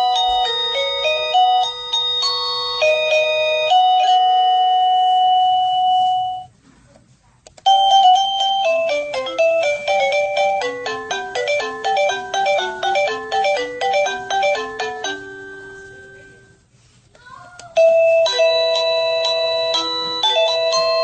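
Sadotech Model C wireless doorbell chime playing its electronic melody tunes one after another. The first tune ends about six seconds in. After a short pause a faster run of notes starts and fades out. A third tune begins near the end.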